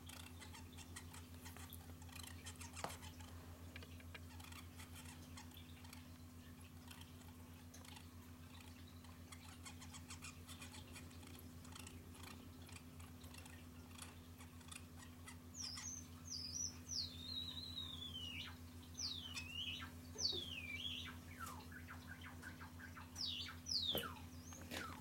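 Pet finch singing a courtship song: faint rapid clicking notes, then, about fifteen seconds in, a run of loud whistled notes that sweep down in pitch. A low steady hum runs underneath.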